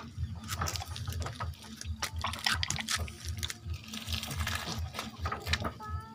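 Wet squelching and sloshing of birth fluids as a calf is pulled by its legs out of a cow during an assisted calving, over irregular low thumps. A brief animal call comes right at the very end.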